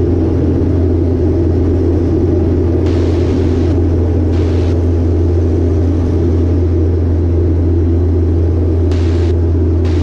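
Piper Cherokee 180's four-cylinder Lycoming O-360 engine and propeller droning steadily in the cabin at constant power.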